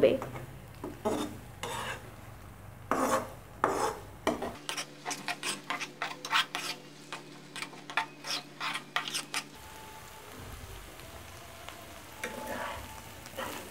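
A metal utensil stirring and scraping a grated potato-and-vegetable filling around a nonstick frying pan in repeated strokes, quicker in the middle, with a light sizzle of the filling frying in oil.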